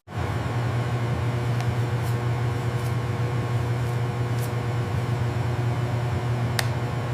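Steady low hum of factory machinery running, with faint steady whining tones above it and a single sharp click near the end.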